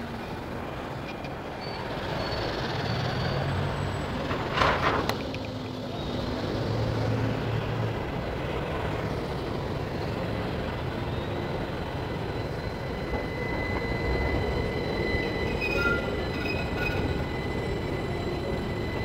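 Light-rail tram running along its rails amid steady city traffic noise, with a brief sharp clatter about five seconds in and a thin high wheel squeal on the curved track later on.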